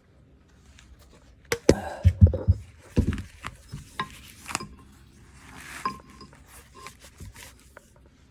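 Metal hand tools and fittings clinking and knocking as they are handled and set down, with a cluster of louder knocks and thumps a second or two in, then scattered lighter clinks, a few with a short metallic ring.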